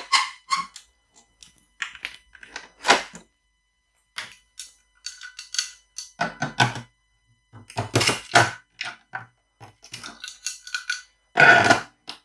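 The lid of a Bosch Cookit kitchen machine being closed onto its stainless steel pot, then the measuring cup being set into the lid opening: a string of irregular clicks, knocks and clatter, loudest near the end.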